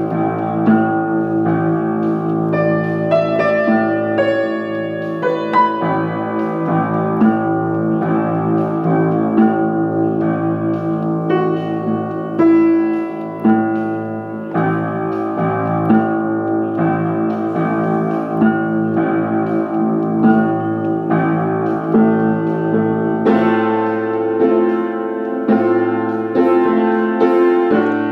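Piano played continuously with both hands: sustained low notes under moving chords and melody. The playing grows fuller and brighter for the last few seconds.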